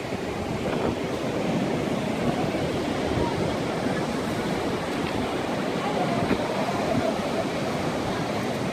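Ocean surf breaking and washing steadily over a rocky reef flat, with wind rumbling on the microphone.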